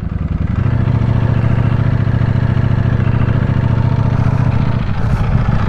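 Ducati Panigale V4S's 1103 cc V4 engine running at a steady low engine speed, its note a little stronger from about half a second in.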